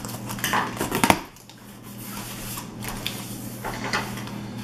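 Plastic shrink wrap crinkling and a cardboard box being handled and opened by hand, with a sharp knock about a second in.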